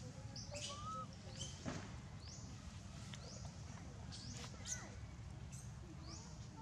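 Short, high rising chirps repeating roughly once a second, with a few fainter squeaky calls, over a steady low hum.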